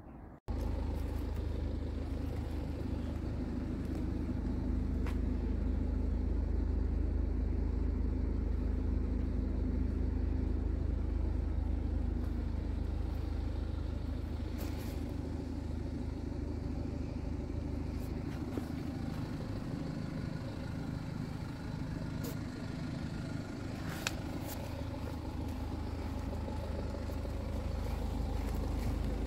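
A car engine idling steadily as a low, even hum, with a few faint clicks.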